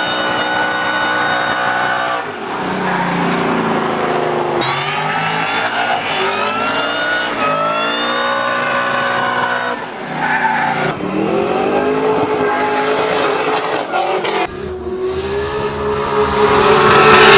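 Drift cars at full throttle, the engine note climbing and dropping again and again, with tyre squeal. Near the end it gets louder and higher.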